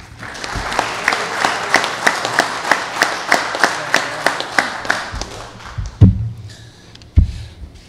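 Small audience applauding for about five seconds, with one person's sharp claps standing out at about three a second, before the clapping dies away. Two dull thumps follow near the end.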